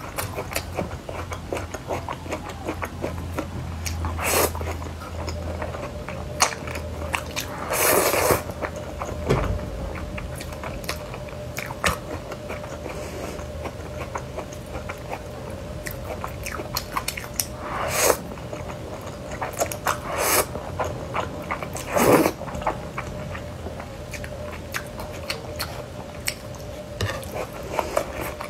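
Close-miked chewing of spicy noodles, with wet mouth clicks and smacks and a few louder, half-second slurps of noodles.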